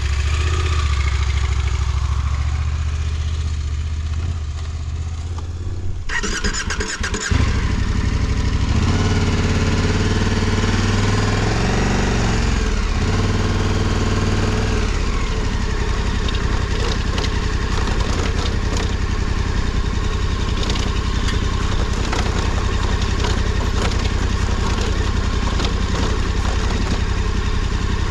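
Big adventure motorcycle engine idling, then about six to seven seconds in it changes abruptly and the engine rises and falls in pitch as the bike pulls away. After that it runs steadily over rough ground, with tyre and stone noise and many small clicks of rocks.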